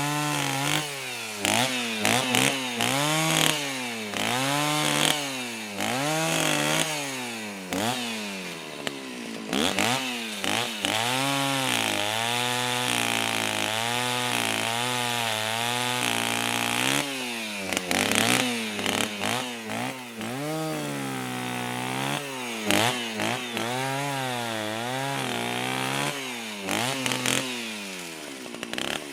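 Chainsaw engine revved up and down over and over, its pitch rising and falling about once a second, with quicker throttle blips in places.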